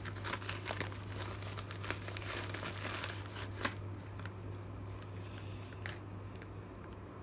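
Packaging crinkling and rustling as it is handled and unwrapped. Dense crackles come for about the first half, with one sharp click about three and a half seconds in, then only sparse rustles.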